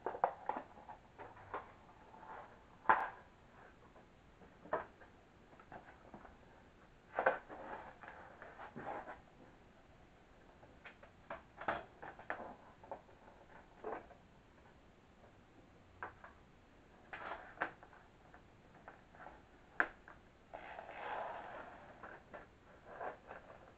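Scattered knocks, taps and rustles of handling as a corded drill and a plastic bag of screws are set out on the plywood and OSB floor panels, with a longer rustle near the end.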